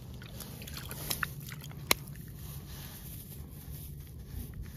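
Phone handling noise: faint scrapes and rustling with a few short clicks, the sharpest about two seconds in, over a low steady rumble.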